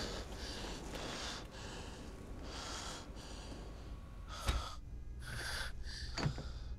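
A man breathing heavily, a series of hissy breaths roughly a second apart. Two sharp knocks come near the end.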